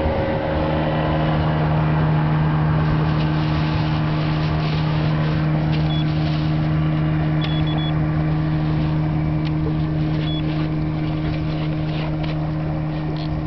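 An engine running steadily at one constant pitch, a low even drone that neither rises nor falls.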